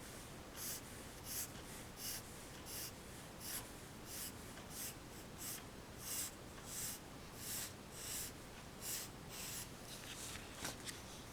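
Pencil scratching on paper in short, regular sketching strokes, about three strokes every two seconds, with a few lighter, sharper ticks near the end.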